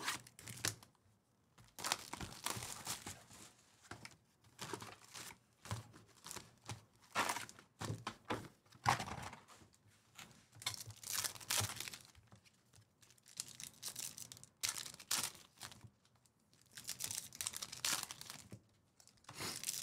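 Foil wrappers of Topps Chrome trading-card packs crinkling and tearing as the packs are handled and ripped open, in irregular bursts.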